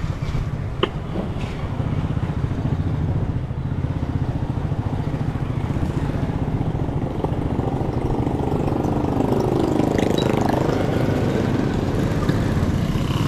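Small motorcycle engine running steadily at low street speed, heard from the rider's seat. About nine seconds in, a second engine note rises and falls as another motorcycle passes close by.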